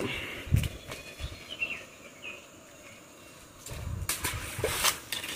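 Knocks and scuffs of a person stepping and moving over rocks at the water's edge, with a sharp knock about half a second in and a burst of scuffing and rustling near the end. A few short high chirps come in between.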